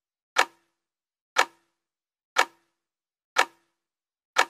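Quiz countdown-timer sound effect: a sharp clock tick once a second, five ticks in all, with nothing between them.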